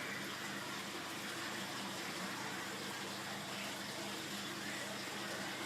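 Small built-in waterfall splashing steadily into an aquarium: an even rush of falling water with a low steady hum underneath.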